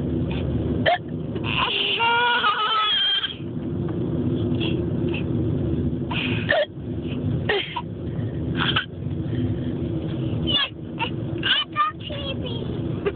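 A child making short, sharp fake hiccup sounds, about ten scattered through, with one longer high, wavering vocal squeal about two seconds in. Under it runs the steady rumble of road noise inside a car.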